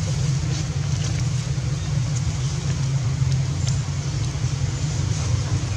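A steady low rumble, with a few faint light ticks above it.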